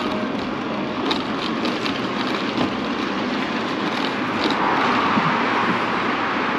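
Steady rush of wind and tyre noise from an electric bike being ridden on the street, with no engine sound and a few faint clicks. It grows a little louder about five seconds in.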